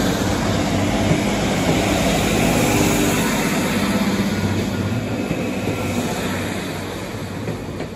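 Northern diesel multiple unit moving out past the platform, its engines and wheels on the rails running close by, then fading as it draws away in the second half.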